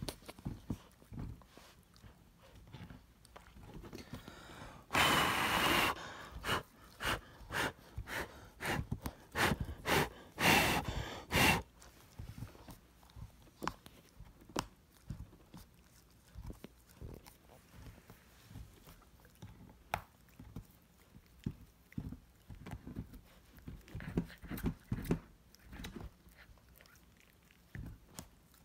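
Samoyed puppy chewing and mouthing up close, making irregular wet clicks and scratchy rustles. A loud rustle comes about five seconds in, followed by a busy run of chewing noises until about twelve seconds in; after that come only sparse, faint clicks.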